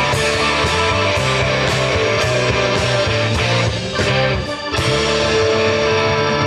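Rock band playing instrumentally: electric guitar over drums, with cymbal hits about twice a second. The band drops back briefly about four seconds in, then comes back in full.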